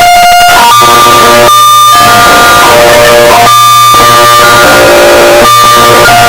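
Very loud, heavily distorted electronic alarm: steady tones that jump in pitch every half second or so over harsh noise and a low hum, the pattern repeating about every two seconds.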